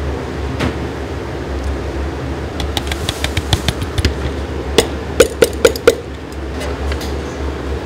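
Steady low hum of a commercial kitchen, with a run of light clinks about a third of the way in, then five sharp taps in quick succession past the middle as utensils knock against stainless-steel trays.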